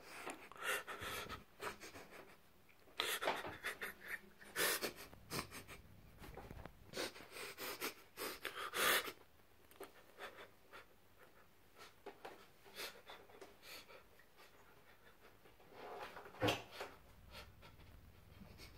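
A person breathing heavily and panting close to the microphone, in irregular bursts through the first half, then mostly quiet with a few more breaths about three quarters of the way in.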